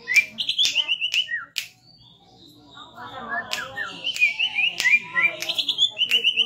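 Green leafbird (cucak ijo) singing a fast, varied song of short chirped notes, mixed with sharp clicks. The song drops out for about a second, about two seconds in, then resumes.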